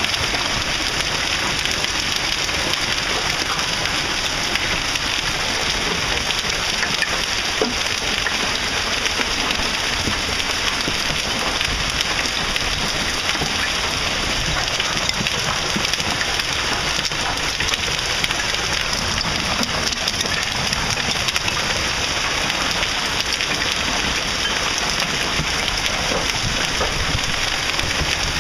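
Heavy hail pelting down: a dense, steady clatter of countless small impacts.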